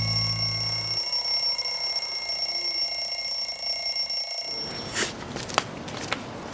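Background music holding one steady ringing chord; its bass drops out about a second in and the chord stops about five seconds in. A few light clicks follow near the end.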